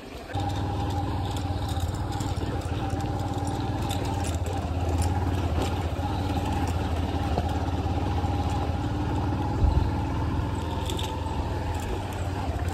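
Motorcycle engine running at a steady speed, starting abruptly just after the beginning and holding an even pitch, with a single thump about ten seconds in.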